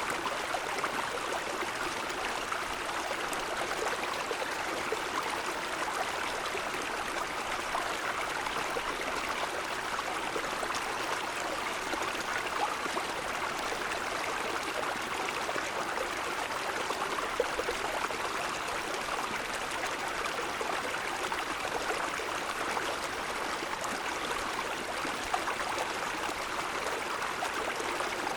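Mountain stream flowing over snow-covered stones: a steady rush and babble of water without break.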